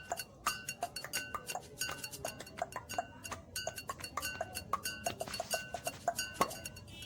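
Rapid mouth clicks made with the tongue, several a second in an uneven rhythm, each a short, hollow pop with a brief pitched ring.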